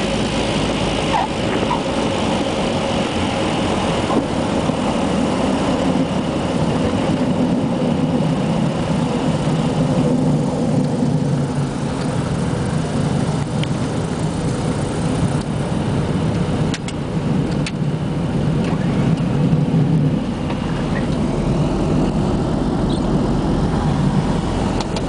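Small propeller aircraft's engines running steadily, heard from inside the cabin, as the plane rolls out and taxis after landing. The sound is a deep, even drone with a faint steady tone above it.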